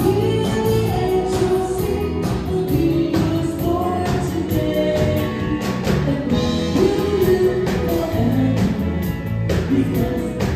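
Live band music through PA speakers: female singers singing into microphones over a steady beat from a drum kit, with guitar and keyboard.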